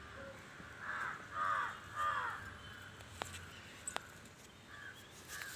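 A bird giving harsh, caw-like calls: three in quick succession about a second in, then two fainter ones near the end.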